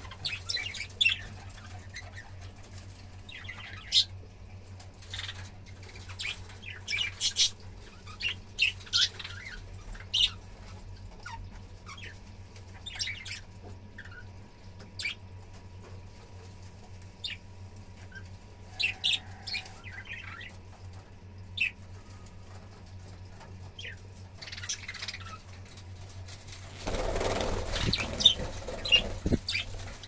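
A flock of budgerigars chirping in short, scattered calls, with a louder flurry of wingbeats near the end as birds flap and take off.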